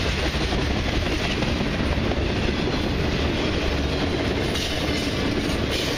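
Cars of a long mixed freight train rolling past on the rails: a steady rumble with wheel clatter and rail noise that does not let up.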